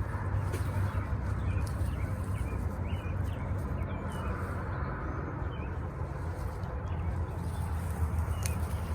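Small birds chirping in short, scattered calls over a steady low mechanical hum.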